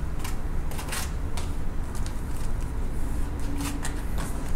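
Plastic rustling and scattered light clicks as vacuum-sealed bags of steak are handled and lowered into a plastic sous vide water bath. A steady low hum runs underneath.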